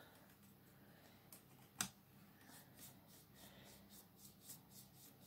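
Faint scratching of a paintbrush stroked back and forth across watercolour paper, a few strokes a second, with a single light click just under two seconds in.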